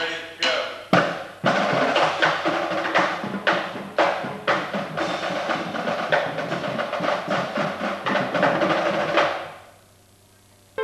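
Marching drumline of snare and tenor drums playing a fast rhythmic passage together, with rolls and accented strikes. It fades out near the end.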